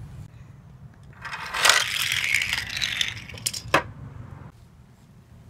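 Wooden toy train engine rolling and rattling along a toy track for about two seconds, followed by two sharp clicks.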